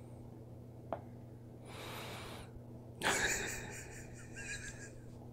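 Quiet room with a steady low hum. One sharp click about a second in, then a soft breath, then a brief rustle about three seconds in that fades over a second or so.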